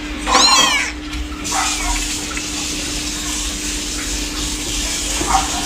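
A kitten gives one short, high mew about half a second in, followed by a steady hiss.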